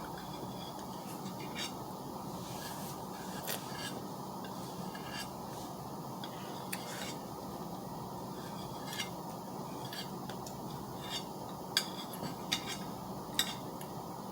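Scattered light clicks and scrapes of a utensil against a dish while eating strawberries and whipped cream, at irregular intervals over a steady low background hum.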